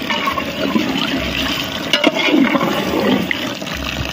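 Water poured in a steady stream into a large aluminium pot of chicken masala, splashing onto the meat and gravy as the biryani base is topped up with water before the rice goes in. A ladle knocks once against the pot about halfway through.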